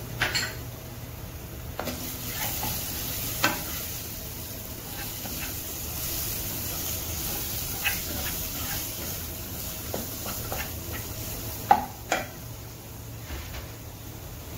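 Chopped onions and spice powders sizzling in hot oil in a nonstick pot while a wooden spatula stirs them, with a steady hiss and scattered knocks and scrapes of the spatula against the pan, the loudest twice close together near the end.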